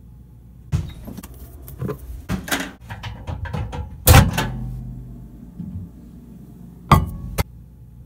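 A running microwave oven hums steadily, with a burst of clicks and knocks in the first half, the loudest about four seconds in, and two sharp knocks near the end.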